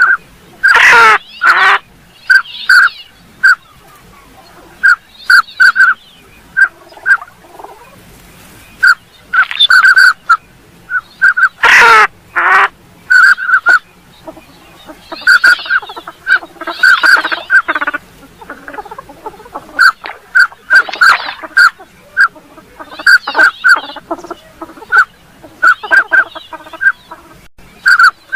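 Northern pintail ducks calling: bursts of short, repeated whistle-like notes, broken now and then by louder, harsher calls that fall in pitch.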